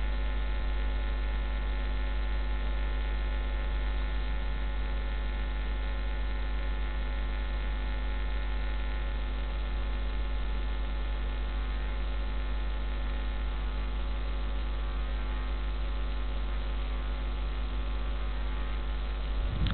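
Steady electrical mains hum with a thin buzz of many even overtones above it, unchanging throughout.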